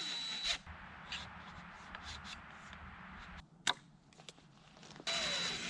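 Rubbing and handling noises, with a single sharp click a little past halfway and a steady hiss starting about five seconds in.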